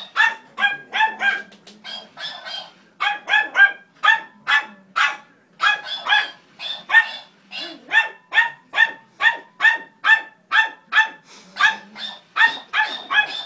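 A small dog barking over and over in short, sharp barks, about two a second with brief pauses, at a toy hamster.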